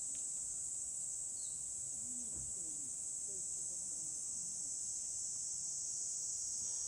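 Insects chirring steadily in one continuous high-pitched drone, with faint distant voices underneath.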